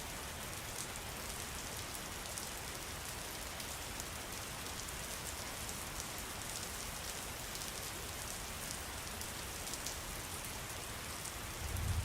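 Steady rain falling, an even hiss with scattered drop ticks. A brief low rumble swells just before the end.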